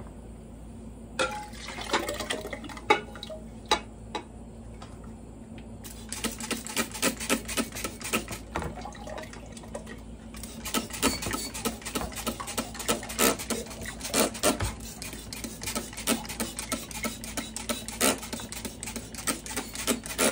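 Glass lab beakers clinking and knocking together, with liquid pouring and sloshing and quick squirts of a trigger spray bottle rinsing a white slurry from one beaker into another. A few sharp glass knocks come first, and the clatter turns busy and rapid about six seconds in.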